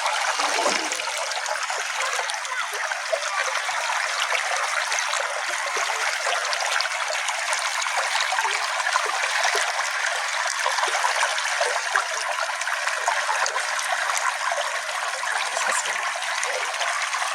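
Small stream flowing steadily: a constant light rush of running water without any deep rumble.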